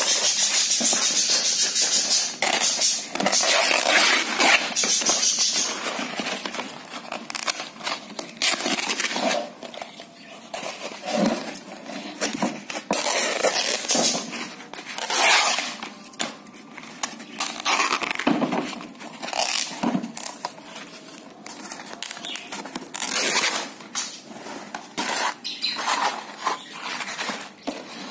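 Old varnished painted canvas being ripped apart by hand: a run of irregular tearing rips and scraping, loudest and most continuous in the first several seconds, then coming in shorter, quieter tears.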